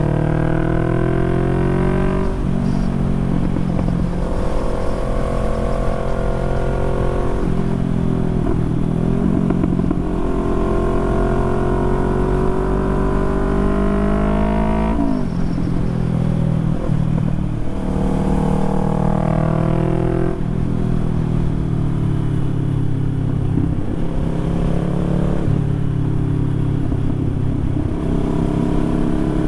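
Motorcycle engine under way, its revs climbing and then dropping at each of about five gear changes.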